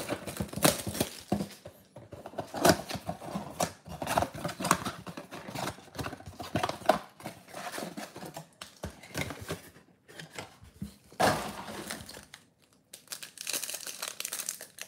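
Packaging of a trading-card mega box being torn and crinkled open by hand: irregular tearing, crackling and rustling of wrap and cardboard as the box is opened and the packs are pulled out, with a brief lull near the end.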